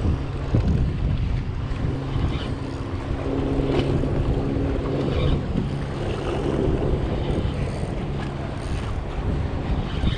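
Wind buffeting the microphone over open water, with the steady low hum of a boat motor running underneath.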